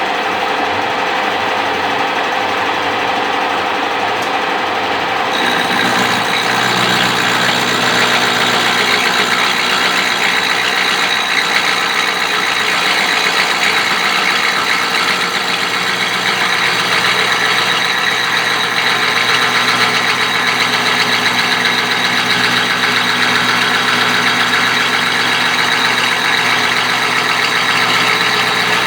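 Milling machine running steadily while milling a brake caliper bracket, a continuous machine drone with a high whine; about five seconds in it gets louder and brighter and stays that way.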